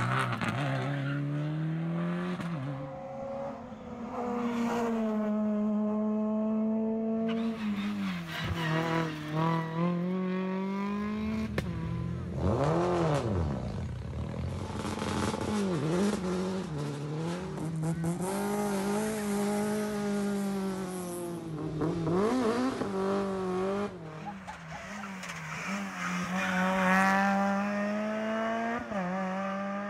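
Rally cars' engines at full throttle, revving up through the gears in repeated rising sweeps, each dropping back at a shift. Several cars pass one after another.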